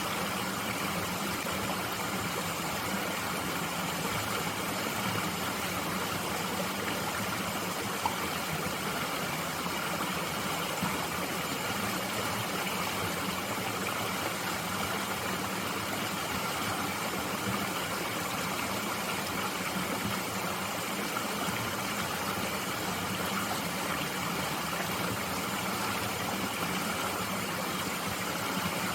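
Mountain stream flowing steadily, an even rushing of water with no change in level, and a single short tick about eight seconds in.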